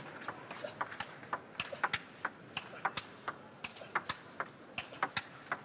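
Table tennis rally: the ball clicking sharply off the rackets and the table in quick alternation, about four clicks a second, over a faint murmur in the hall.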